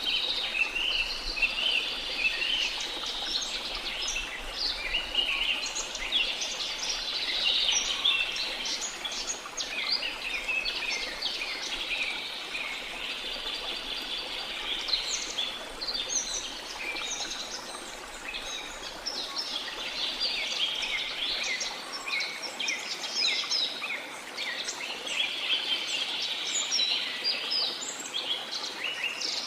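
Dense chorus of many birds chirping and trilling together, over a faint steady rush of falling water.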